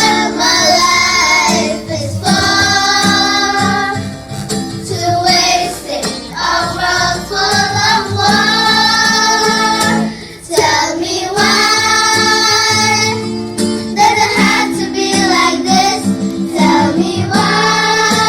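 Children singing a song together over a backing track with guitar, in long held phrases.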